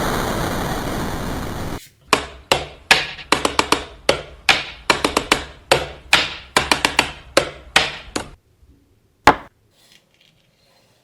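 A loud, even hiss for about the first two seconds, cutting off abruptly, then a quick run of sharp taps in irregular clusters of one to three for about six seconds, with one last tap about a second later.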